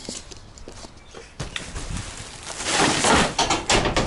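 Household rubbish being thrown into a plastic wheelie bin: a knock, then about a second of loud rustling and clattering as the bag goes in, ending with a few sharp knocks.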